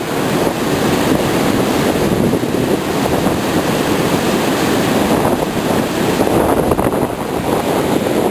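Mountain stream cascading over granite rocks in a whitewater fall, a loud steady rush of water close by.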